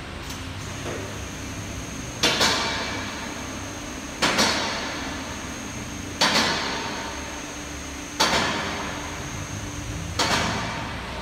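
Celette Rhone XL collision-repair bench lifting under load, with a sharp metal clank about every two seconds, five in all, each ringing briefly: the bench's safety catches dropping into their notches as it climbs. A faint steady high whine runs underneath.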